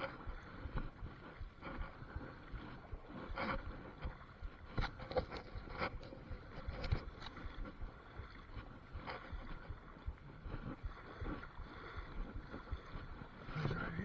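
River water sloshing and splashing around a wader's legs and a landing net as he wades through deep current, in uneven strokes with small knocks and splashes.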